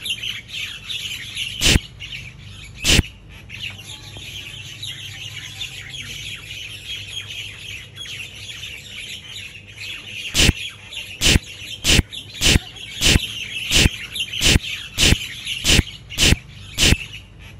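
Birds chirping steadily in the background. Two sharp clicks come in the first few seconds, then a quick run of about a dozen more, roughly two a second, from about ten seconds in.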